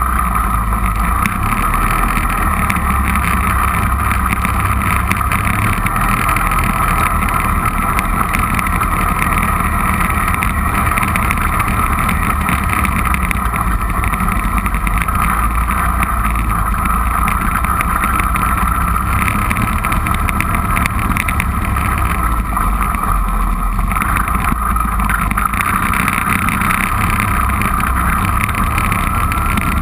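ATV (four-wheeler) engine running steadily under way, with small changes in its low drone as the throttle varies.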